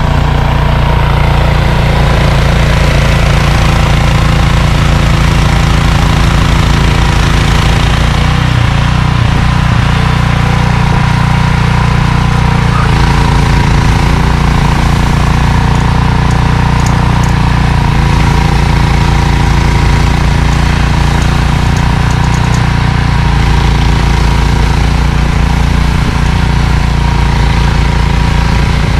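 Gasoline snowblower engine running steadily and loudly, its note shifting slightly a few times.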